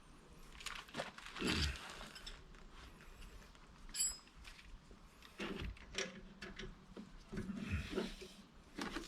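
Scattered clicks and knocks of metal tools and car parts being handled, with one short metallic ring about four seconds in.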